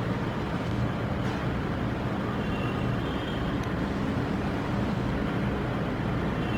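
Steady low rumble with a faint hum, even throughout, with no distinct events.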